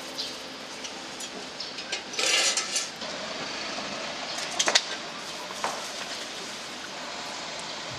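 Wooden chopsticks clicking against a plate and paper cups while eating, with a few sharp clicks close together just before five seconds in and another near six seconds, over a steady street background. A brief burst of rustling noise about two seconds in.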